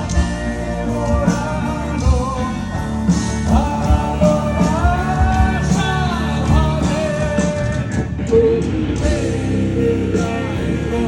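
Rock band playing a song live: drums, bass and guitars with a melodic line that glides up and holds in the middle.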